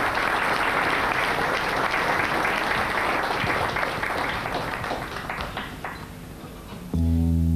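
Audience applause that thins out to a few scattered claps and fades, then a sustained keyboard chord starts near the end.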